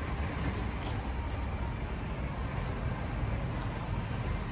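Suzuki Katana's inline-four engine idling steadily.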